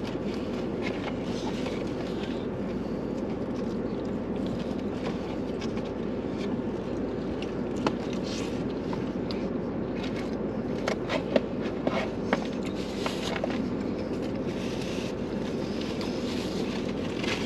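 Steady hum inside a car cabin, with a few light clicks and rustles from paper food wrappers and plastic forks, most of them in the second half.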